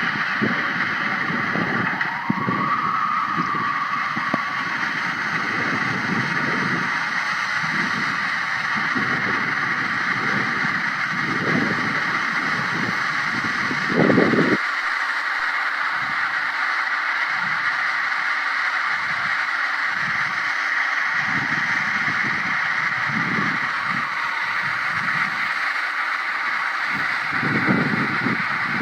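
Strong wind blowing with a steady hiss, low gusty rumbles surging and fading every second or so, and a brief thin howl about two seconds in. A stronger gust comes about halfway through, after which the low rumbling drops away for a while before returning near the end.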